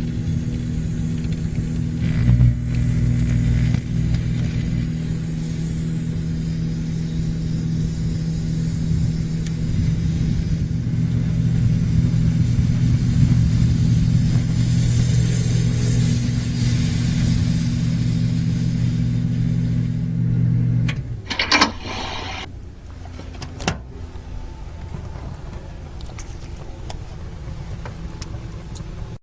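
Microwave oven running with a mobile phone inside, giving a steady electrical hum with some hiss; the hum stops about 21 seconds in, followed by a short burst of sharp knocks and a single click a couple of seconds later.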